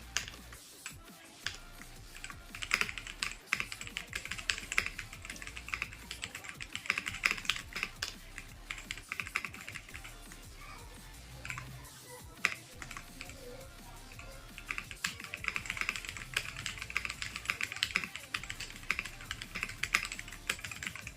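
Typing on a Kreo Hive 65 65% mechanical keyboard: fast runs of key clacks, slowing to a few separate keystrokes about halfway through, then picking up speed again.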